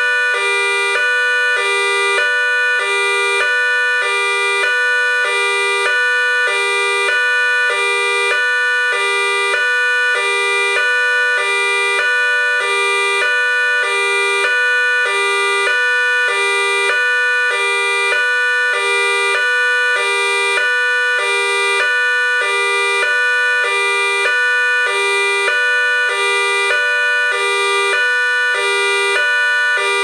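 Whelen WPS-3000 electronic siren sounding its dual-tone High-Low signal through two 100-watt speaker drivers. It alternates evenly between a high and a low tone, switching about twice a second, loud and steady throughout.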